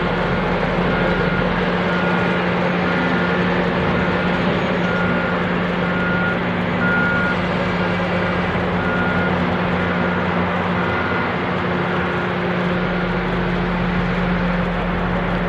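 Heavy mining machinery running with a steady low diesel drone, over a haul truck's reversing alarm beeping about twice a second as it backs into loading position under the shovel.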